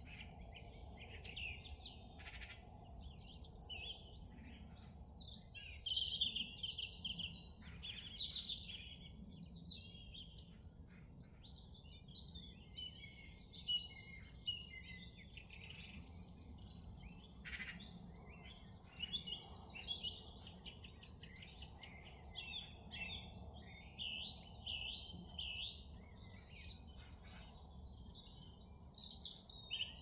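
Several songbirds singing and calling over one another in a busy chorus of chirps and trills, louder about six seconds in and again near the end, over a low steady background rumble.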